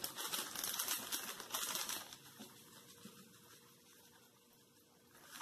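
Plastic packet of grated parmesan rustling as it is shaken over a dish to sprinkle the cheese. It is busiest in the first two seconds, then dies away.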